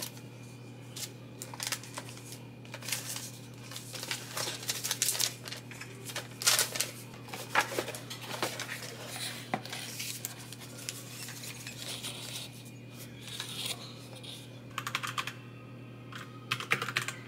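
Papers and receipts rustling and clicking as they are sorted into a plastic storage box, then quick, irregular clacking of a mechanical keyboard being typed on near the end.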